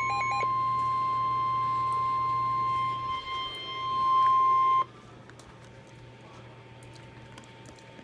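Emergency alert attention tone: a warbling sweep stops about half a second in, leaving a single steady beep-like tone near 1 kHz that holds for about four seconds and then cuts off suddenly. Faint hiss with a few clicks follows.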